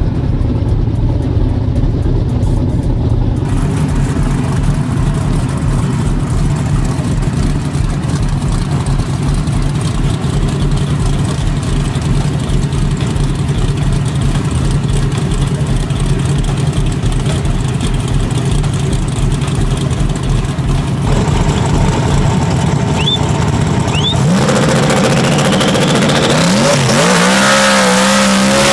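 Modified drag-race car engines idling with a pulsing low beat. In the last few seconds they get louder, and an engine revs with rising pitch.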